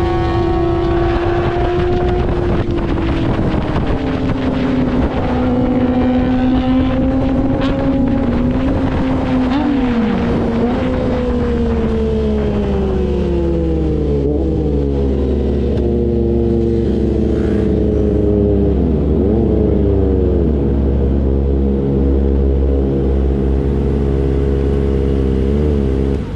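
Kawasaki ZX-25R's high-revving inline-four through an R9 aftermarket exhaust, its note falling steadily as the bike decelerates, with a few short dips and rises in pitch on the way down. It settles into a steady lower hum near the end as the bike comes to a stop.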